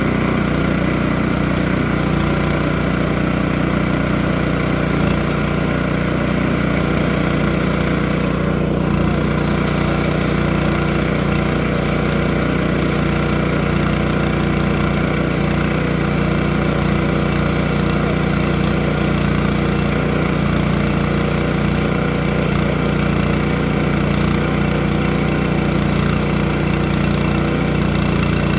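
Engine running at a steady speed, a constant drone that does not rise or fall.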